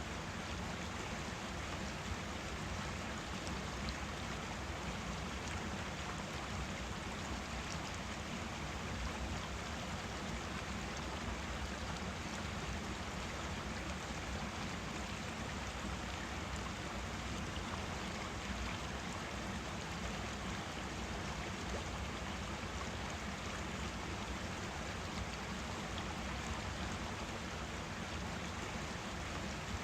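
Forest stream running with a steady, even rush of flowing water.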